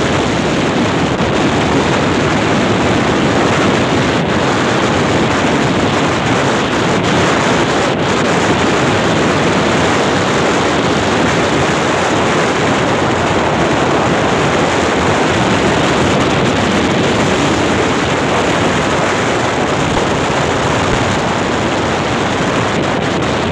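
Steady, loud wind noise buffeting the microphone of a phone carried along a road on a moving vehicle, with road and vehicle rumble underneath.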